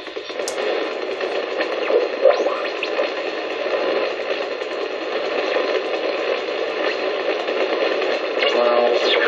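Hallicrafters S-38E shortwave receiver's speaker hissing with static and noise as the dial is tuned across the band, with a few short sliding whistles as it passes signals. A sharp click about half a second in.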